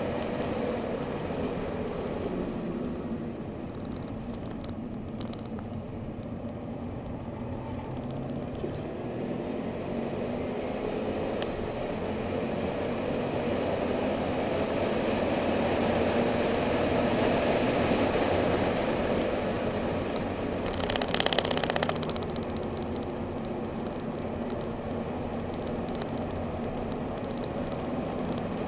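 Car engine and road noise heard from inside the cabin during a hot lap, the revs falling and climbing as the car brakes and accelerates, growing louder toward a peak before a brief burst of noise and a drop in level about three quarters of the way through.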